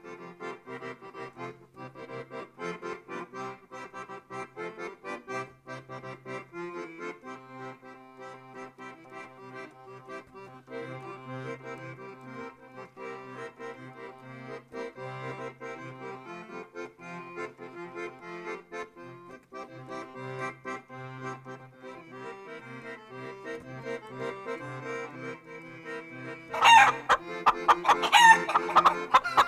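Accordion music plays a lilting melody over a steady bass line. About 27 s in, chickens break in loudly with a run of clucking calls that goes on over the music.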